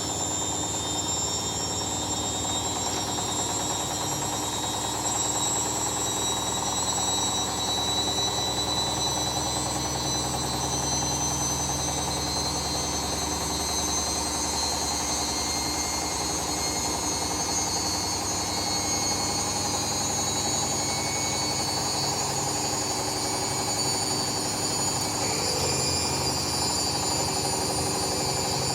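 Hoover Dynamic Next 7kg washing machine spinning its drum at high speed with the door open: a steady motor whine of several high tones over a low hum.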